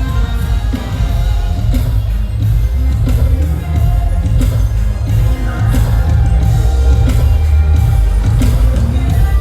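Live band playing an R&B song through a concert PA, heavy on bass with a steady beat, a singing voice coming in over it.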